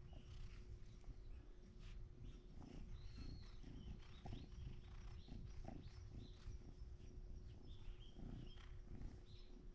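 Cat purring low and close while being stroked, with faint bird chirps now and then and a steady faint hum.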